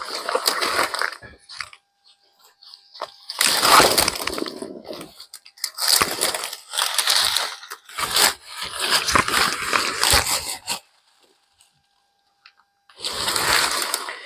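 Rustling and crackling noise in five bursts of one to two seconds each, with short quiet gaps between.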